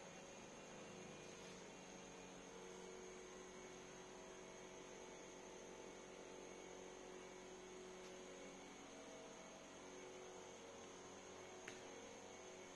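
Near silence: a faint, steady hum with a thin high tone above it.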